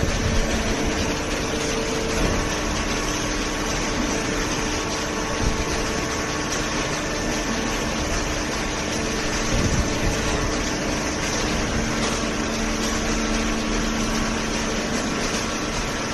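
Hydraulic paper baling press running: a steady mechanical hum from its hydraulic pump, with a few held tones that shift slightly in pitch about two seconds in.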